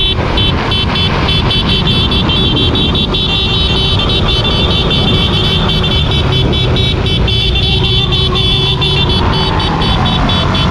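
Motor vehicle engine running steadily, with wind rushing on the microphone. A tone falls in pitch over the last few seconds.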